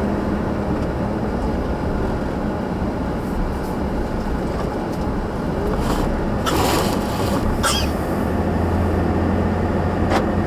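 Car driving, heard from inside the cabin: steady engine and road noise. A low hum grows louder about eight seconds in, and a few brief higher-pitched sounds come between about six and eight seconds in.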